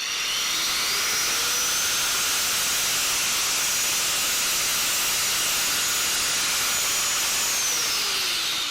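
Angle grinder with an 80-grit abrasive disc grinding heavy rust off a cast iron differential housing: a loud, steady grinding hiss over the motor's whine, which rises as it spins up at the start and falls as it winds down near the end.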